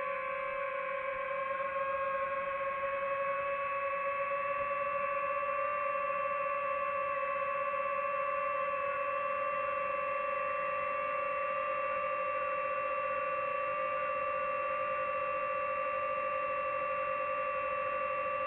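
DJI FPV quadcopter's motors and propellers whining steadily in flight, a high-pitched hum of several tones held at an even pitch.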